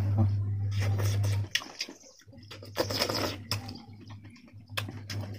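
Close-up eating sounds of a person chewing a mouthful of curry and rice by hand: wet smacks and clicks of lips and food. A steady low hum underneath breaks off about a second and a half in.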